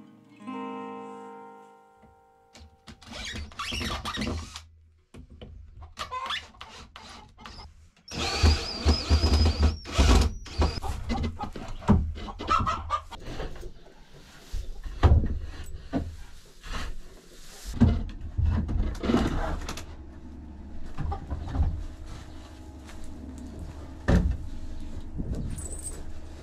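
Shovel and pitchfork scraping into packed straw bedding and chicken manure on a wooden coop floor, in irregular scoops, scrapes and knocks, with chickens clucking at times. Acoustic guitar music fades out in the first two seconds.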